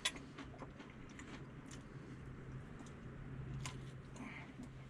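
A person eating close to the microphone: faint chewing and biting, with scattered light clicks of a utensil, over a steady low hum.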